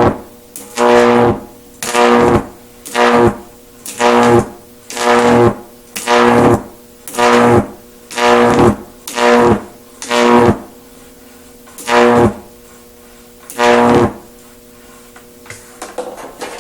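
High-voltage arcs from a stack of microwave oven transformers with resonant capacitors, each arc a loud electrical buzz lasting about half a second. They strike about once a second, roughly a dozen times, then stop a couple of seconds before the end, leaving a few faint clicks.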